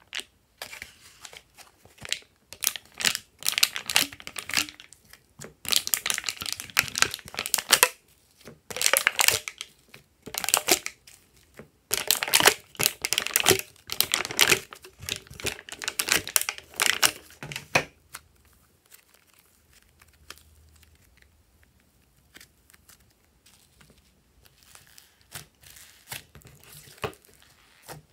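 Glossy slime and the thin plastic cups it comes in crackling and crinkling as hands squeeze and pull the slime out. It comes in bursts lasting a few seconds, dense for the first two thirds, then quieter, with a few more bursts near the end.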